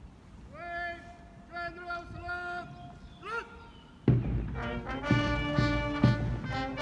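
A long drawn-out shouted parade command, then about four seconds in a brass band strikes up loudly with the salute music.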